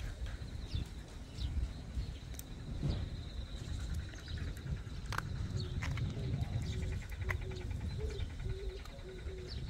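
Outdoor ambience on a walk: a low, uneven rumble of wind on the microphone, scattered bird chirps, and a faint steady high insect drone. From about halfway on, a series of short low calls repeats about twice a second.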